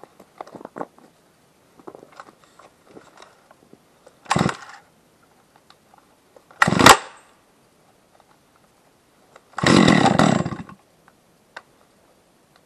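Holzfforma G660 two-stroke chainsaw being started. It fires three times, each time running for only a moment and dying out: a short burst about four seconds in, a louder one near seven seconds, and a longer run of about a second near ten seconds. Faint clicks and handling noises come between the bursts.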